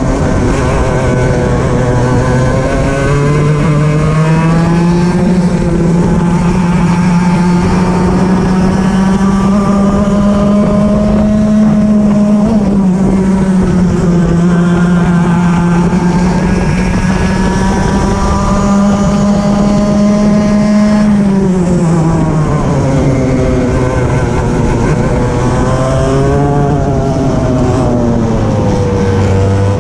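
Racing kart engine heard from on board at race pace. Its pitch rises over the first few seconds and holds high down a long straight, drops about two-thirds of the way through as the driver lifts for a corner, and falls lower again near the end.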